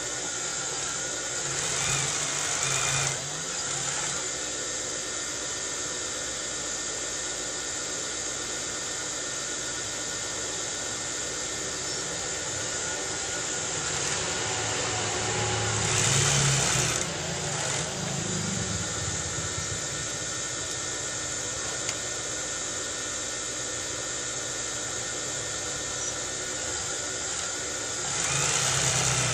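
Industrial flatbed sewing machine stitching fabric over a steady motor hum. It gets louder in stretches: about two seconds in, around the middle, and near the end.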